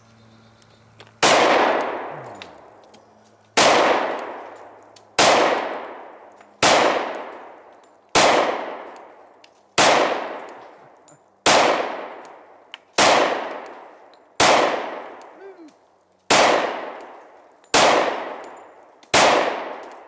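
Twelve shots from a Glock 20 10mm pistol firing heavy 230-grain hard-cast rounds, spaced about one and a half seconds apart, each with a long echoing tail.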